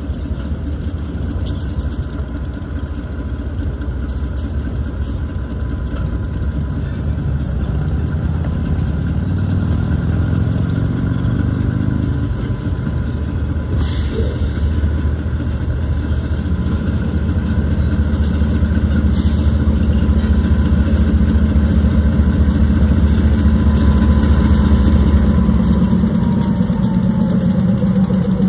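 Pan Am Railways diesel locomotives hauling a freight train, their engines running with a deep drone that grows louder as they approach. The engine note climbs about ten seconds in.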